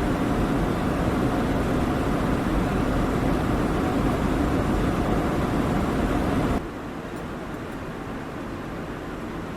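Douglas DC-8 jet airliner's engine and air noise heard inside the cabin in flight: a steady, loud rush with a faint whine. About six and a half seconds in it drops abruptly to a quieter, duller level.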